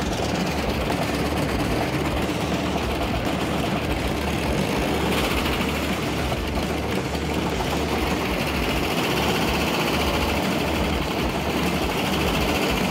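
Car engine driving a washing machine drum through a gearbox in a 1:1 gear, running hard and spinning the drum at speed: a loud, steady mechanical din, with a higher whine coming in about five seconds in.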